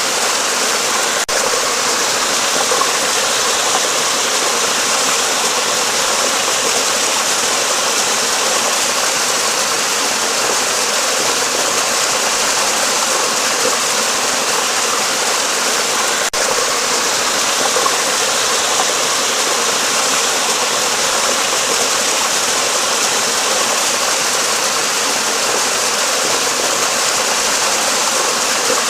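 Flowing water rushing steadily beneath a bridge: an even, unbroken hiss that holds the same level throughout.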